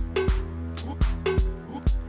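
Background music with a steady drum beat and a repeating bass line.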